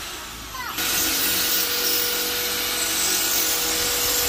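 Electric drill boring into the wall to fix a metal window grill in place. It winds up just before a second in, then runs steadily under load.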